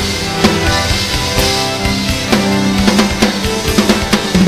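Live band playing an instrumental passage: drum kit with kick and snare keeping a steady beat under bowed violin, guitar and bass guitar. A long low note is held from about halfway through.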